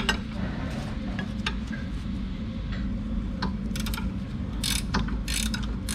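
Metal clicks and clinks of a 19 mm wrench turning out the lower bolt of a rear brake caliper bracket, with a few quick runs of clicking in the second half, over a steady low background hum.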